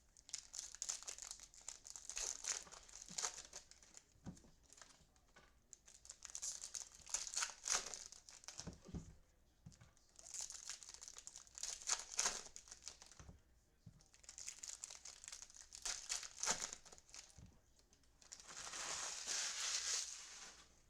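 Crinkly plastic wrappers of baseball card packs being torn open and handled, in about five bouts of crinkling a few seconds apart, the last near the end the longest.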